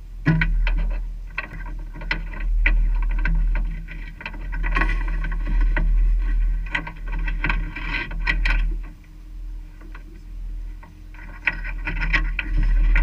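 A steady low rumble with many irregular clicks and knocks over it.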